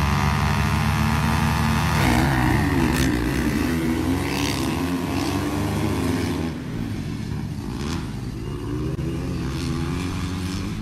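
Motocross dirt bike engines revving at the start, then accelerating away with the engine pitch rising and falling. The sound is quieter from about six seconds in.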